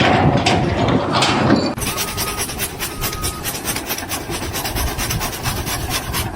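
Rapid rhythmic scraping strokes, about five a second, starting about two seconds in.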